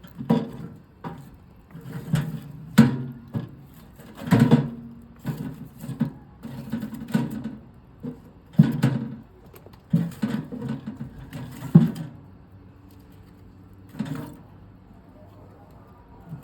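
Irregular knocks and clatter of things being handled, about a dozen short hits in close succession. They stop about three-quarters through, with one more shortly after.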